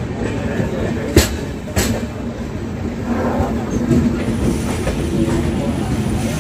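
Passenger train running on the rails, heard from on board: a steady rumble and hum of wheels on track, with two sharp clacks in the first two seconds as the wheels pass over rail joints.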